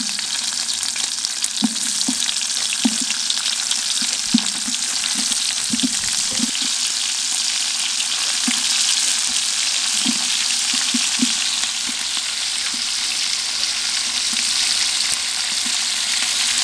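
Bacon fat sizzling steadily in a large aluminium stockpot as slices of swamp cabbage (cabbage palm heart) are cut and dropped in, with soft, irregular knocks of pieces landing in the pot.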